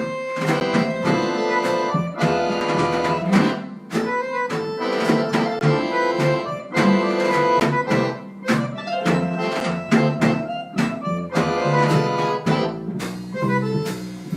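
Live jazz band playing: held melody notes over plucked strings and a steady beat.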